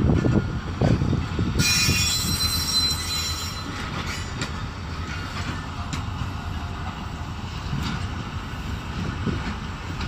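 Railway wagons rolling slowly over the tracks while shunting: a steady low rumble with a few knocks of wheels on the rails. About a second and a half in, a high metallic wheel squeal sets in and lasts about two seconds.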